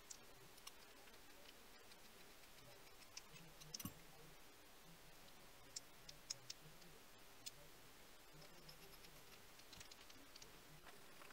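Near silence broken by scattered faint clicks and taps of small metal parts being handled and fitted together, a brass sleeve and steel collar. A small cluster of clicks comes about four seconds in.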